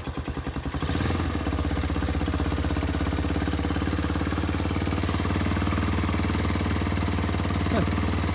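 2017 Arctic Cat 150 ATV's small single-cylinder four-stroke engine idling just after starting, uneven for about the first second and then settling to a steady, even run. It runs smoothly now that a new spark plug has cured its hard starting.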